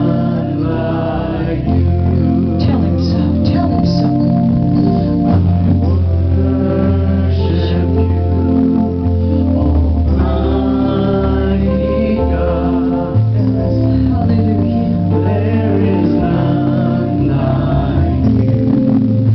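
Gospel worship music: organ chords held under singing voices.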